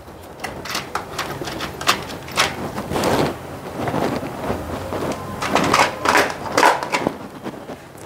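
Irregular clicks and light knocks of small parts and hand tools being picked up and handled on a workbench, about a dozen sharp ticks spread over the few seconds.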